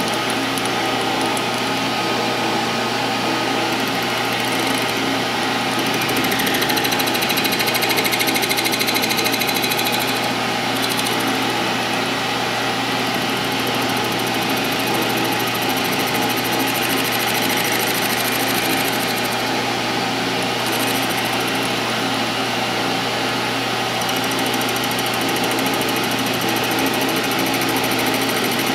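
Metal lathe spindle running steadily at about 720 RPM, with a carbide tool taking light facing cuts across the sawn end of an off-centre steel tube. The running hum holds steady, with a slightly louder, hissier stretch about six to ten seconds in.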